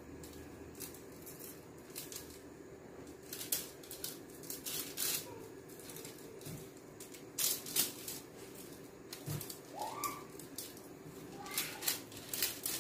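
Hands sprinkling seasoning onto raw whole fish on an aluminium-foil-lined tray: irregular soft clicks and crinkles from the foil and the falling spice, in a few short clusters over a faint steady hum.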